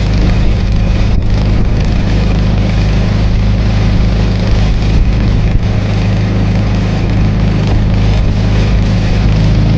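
Boat outboard motor running steadily at constant speed, a loud even drone with a low hum.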